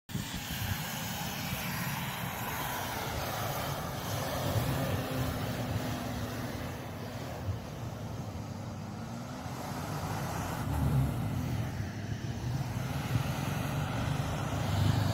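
Toyota Land Cruiser 100's 4.2-litre diesel engine working under load as the vehicle ploughs uphill through deep snow, with the tyres churning snow. The engine gets louder about eleven seconds in and again near the end.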